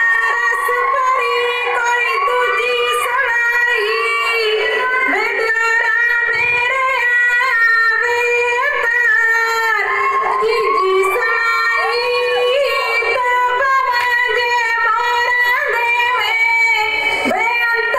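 Women singing a Punjabi folk song for giddha into microphones, amplified through PA loudspeakers, in a continuous high-pitched melody with little bass.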